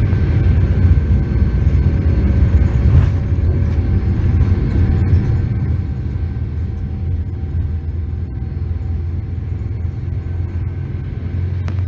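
Cabin noise of a Boeing 787-9, with Rolls-Royce Trent 1000 engines, on its takeoff roll: a loud steady rumble from the engines at takeoff power and the wheels on the runway, with a faint steady whine above it. The rumble eases slightly about halfway through.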